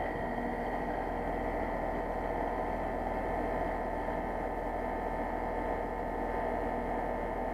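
Carrier Infinity variable-speed heat pump outdoor unit running steadily in pump-down mode, pumping the refrigerant back into the outdoor unit with the liquid line closed. It is a constant rushing hum with several fixed tones in it.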